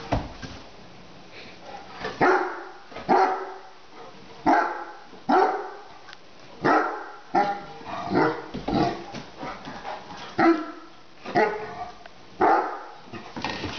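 Young Great Dane barking at a glass pot lid on the floor: about a dozen short, sharp barks at roughly one a second, which the owner takes for fear of the lid.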